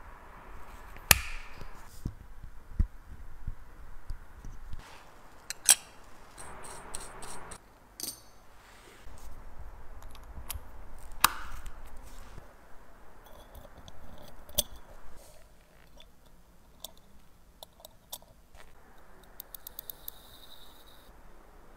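Watchmaker's tools clicking and tapping on the mainspring barrel and parts of a Rolex 3155 watch movement as the barrel cover is opened and the mainspring pressed in: a few sharp snaps among light scraping, and a quick run of fine ticks near the end.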